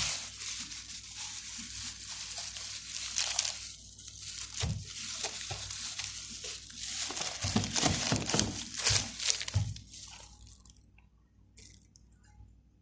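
Rustling and crinkling, as of packaging being handled, with a few soft knocks; it dies away near the end.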